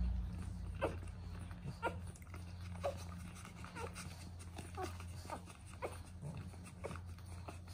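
Newborn puppies squeaking and whimpering while they nurse: short high cries, each falling in pitch, about once a second.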